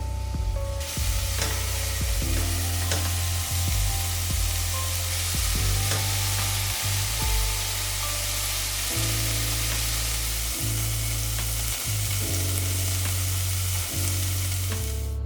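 Food sizzling as it fries in a pan, a steady hiss that starts about a second in and cuts off right at the end, over background music with a deep bass line.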